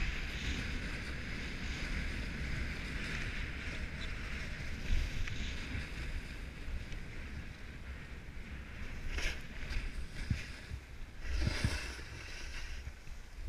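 Steady hiss of riding down a groomed slope, edges sliding over packed snow, with wind rumbling on the microphone. A couple of louder scrapes in the second half as the rider turns.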